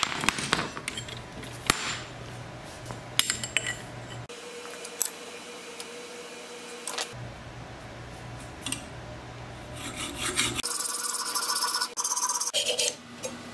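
Hacksaw cutting through thin-walled steel tube held in a bench vise: repeated rasping back-and-forth strokes, heaviest near the end, with scattered clicks of handling.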